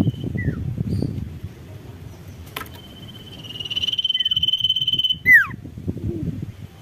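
A common iora (sirtu) calling: short down-slurred notes, then a long steady high whistle held for nearly two seconds, ending in a loud, sharply falling note. A low rumble runs underneath.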